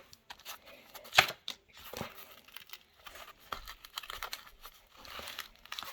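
Packaging being handled and rummaged through: crinkling and rustling of paper and plastic, with scattered sharp clicks, the loudest about a second in.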